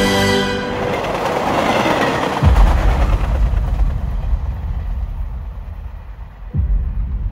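Film sound design: the music breaks off into a rushing swell, then a deep boom about two and a half seconds in opens a low, train-like rumble that slowly fades, with a second deep boom near the end.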